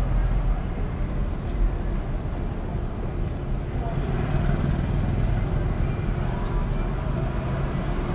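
Street ambience: a steady low rumble of vehicle engines, with a motor scooter's engine running close by from about halfway through, and faint indistinct voices.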